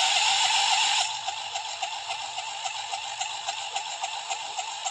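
Electric starter cranking the engine of a 2006 Huskee riding tractor: a steady high whine with a fast regular wobble, with the engine turning over but not catching. It is louder for about the first second, then a little quieter.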